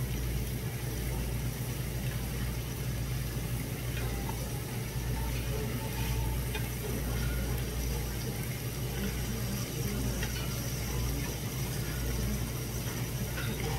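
Pork belly and squid sizzling steadily on a hot tabletop grill plate, over a steady low hum, with a few faint clicks as chopsticks turn the meat.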